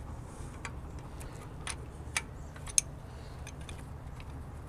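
Scattered light metallic clicks and taps from handling a Jeep's brake caliper and its freshly removed bolts while working the caliper off the rotor. The two sharpest clicks fall a little after two seconds and just before three, over a steady low hum.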